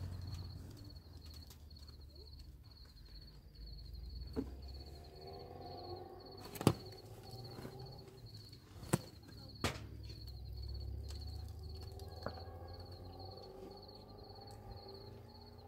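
A cricket chirping steadily in a fast, even pulse, with a few sharp knocks over it, the loudest about halfway through.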